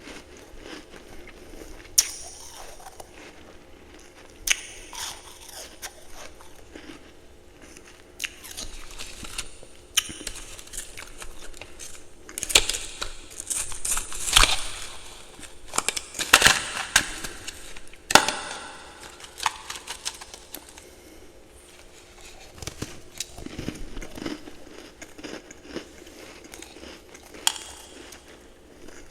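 A person biting and chewing ice and frost close to the microphone: sharp crunches at irregular intervals, with a busy run of crunching in the middle and quieter chewing towards the end.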